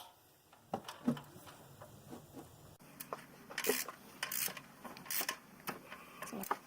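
Irregular clicks and short scrapes of a wrench turning the belt tensioner's adjusting bolt as the serpentine belt is tightened.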